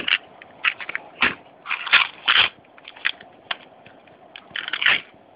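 Small plastic parts-storage boxes handled by hand, giving irregular bursts of plastic clicks and rattles, with the small metal pieces inside shifting. The loudest bursts come about two seconds in and again near the end.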